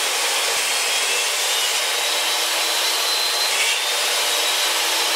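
Portable jobsite table saw running steadily while a board of solid wood is fed through the blade. This is the first of two passes that cut a rabbet out of the frame stock.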